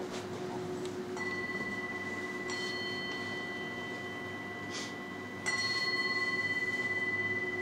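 Small hand-held Tibetan singing bowl struck three times with a mallet, each strike leaving a high, clear tone ringing on; the last strike, near the end, is the loudest. Underneath runs a low, steady hum from the larger bowls still ringing.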